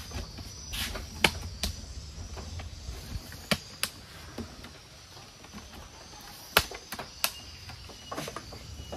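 Scattered sharp clicks and knocks of hand tools and metal parts being handled during motorcycle repair work, about half a dozen separate taps over a faint low hum.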